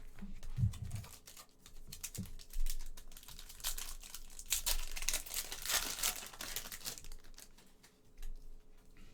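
Crinkling and clicking of a foil trading-card pack wrapper being handled and torn open, with cards shuffled and slid against each other; busiest in the middle, then settling down.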